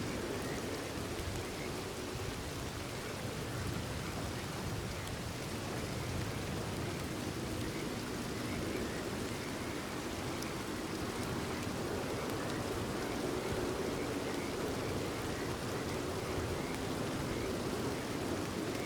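Steady rain falling, with faint short frog calls repeating in the background.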